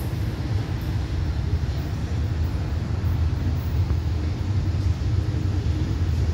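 Diesel locomotive of an approaching passenger train giving a steady low engine rumble that grows slightly louder near the end.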